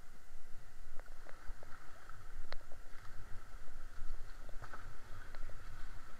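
Canoe being paddled: paddle strokes and splashing over the steady rush of flowing water, with a few short sharp clicks and knocks scattered through.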